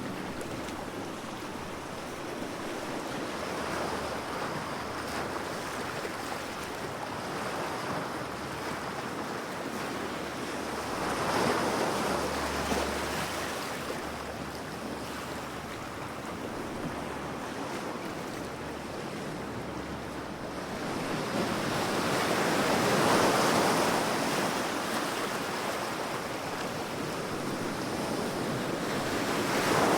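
Sea waves breaking on the shore: a continuous wash of surf that swells as waves crash, around 11 seconds in, more broadly around 22 to 25 seconds, and again near the end.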